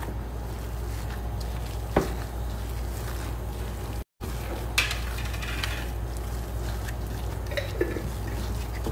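Raw minced chicken kebab mixture being squeezed and kneaded by a gloved hand in a glass bowl, with a sharp click about two seconds in, all over a steady low hum.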